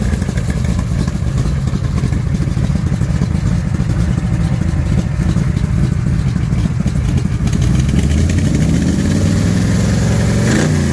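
1967 Shelby Cobra's V8 engine idling loudly and unevenly, warming up after a cold start. Near the end the revs climb briefly.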